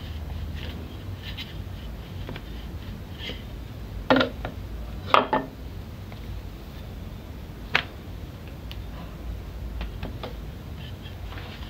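Wooden rolling pin working dough on a tiled counter: soft scraping ticks and a few sharp knocks of the pin on the tile, the loudest about four and five seconds in and another near eight seconds, over a steady low hum.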